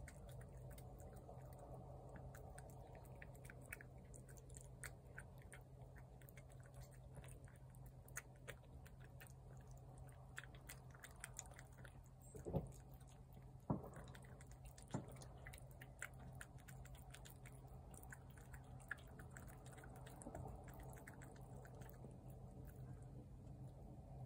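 Cats eating from plates: faint, quick chewing clicks and crunches throughout, over a low steady hum, with a couple of louder knocks about halfway through.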